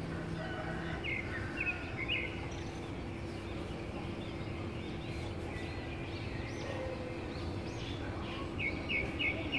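Outdoor ambience of steady background noise with a faint low hum, and small birds chirping in short quick runs about a second in and again near the end.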